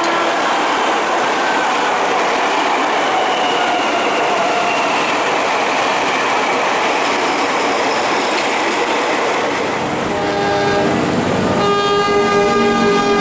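A train rolling past with a steady rumble and rail noise. About ten seconds in, a locomotive horn gives a short blast, then starts a longer blast near the end.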